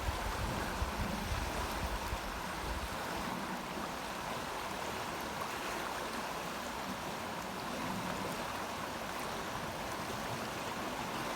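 The Amblève river flowing as a steady, even noise of running water, with a low rumble in the first three seconds.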